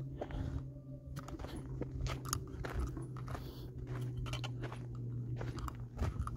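Footsteps crunching on a dry dirt and gravel trail, irregular steps over a steady low hum.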